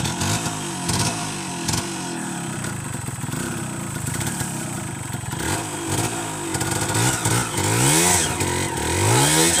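Yamaha two-stroke enduro motorcycle engine running low for the first half, then revved repeatedly in short rising-and-falling bursts, loudest near the end. The bike is stuck in the undergrowth and the engine is being revved to drive it out.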